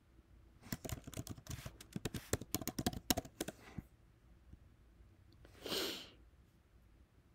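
Typing on a computer keyboard: a quick run of key clicks lasting about three seconds. A short breathy exhale follows near the end.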